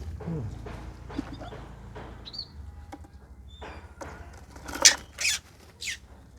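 Aviary songbirds giving a few short high chirps, over a low hum that stops about two and a half seconds in. Near the end come three loud, short rustling strokes.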